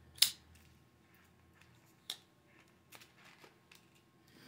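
Sharp clicks from handling a folding knife and its cardboard box: one loud click about a quarter second in, another about two seconds in, then a few faint taps.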